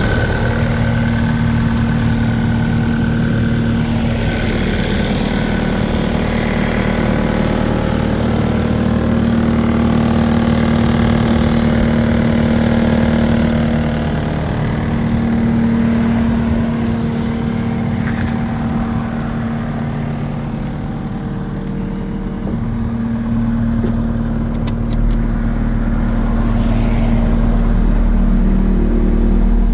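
New Holland L228 skid steer's four-cylinder diesel engine running continuously, with its speed and load shifting. It eases off from about twenty to twenty-three seconds in, then picks up again.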